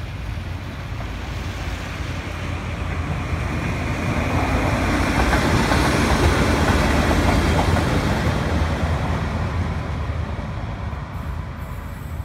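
A convoy of Italian diesel locomotives, an old D345 leading a D445 and a D146 shunter, passing close by: a low diesel rumble with wheels clattering over the rails. It swells to its loudest about halfway through, then eases off as the locomotives move away.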